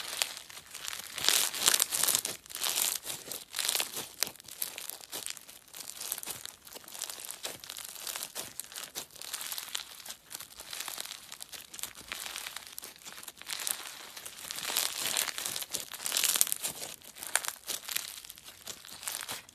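Slime being squished and stretched by hand, with dense irregular crackling and popping that swells louder in stretches.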